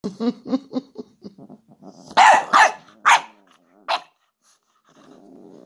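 A dog vocalising: a quick run of short, pitched yips at about four a second, then four loud, sharp barks between about two and four seconds in. A low, steady rumble starts near the end.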